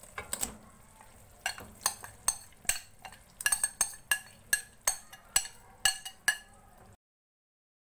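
Metal spoon clinking and knocking against a pan and bowl, about two sharp, ringing strikes a second, as marinated chicken is spooned into the masala and stirred. The sound cuts to dead silence about a second before the end.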